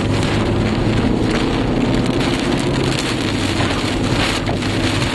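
Wind-driven rain pelting a moving car's windshield and body, heard inside the cabin, with the car's engine and road noise running steadily underneath.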